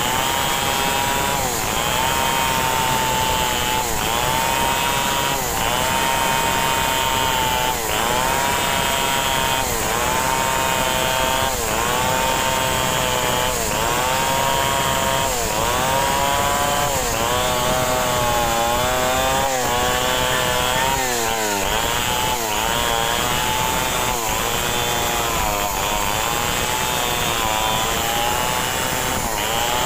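Stihl chainsaw running at full throttle while rip-cutting a log lengthwise along the grain. The engine pitch sags under load and picks back up roughly every two seconds as the bar is worked through the wood.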